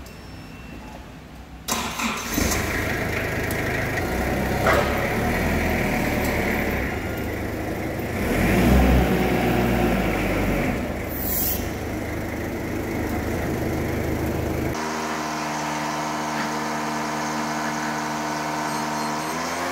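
Forklift engine starting less than two seconds in, then running under load as the forks lift, louder for a couple of seconds near the middle. After an abrupt change, an engine keeps running with a steady hum whose pitch dips near the end.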